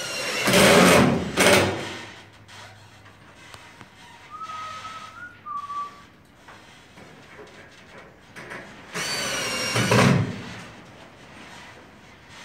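Cordless impact driver driving screws through metal resilient channel into wooden ceiling joists, in two short bursts: one at the start lasting under two seconds, and another about nine seconds in with a slightly rising motor whine. A faint, brief whistle comes in between.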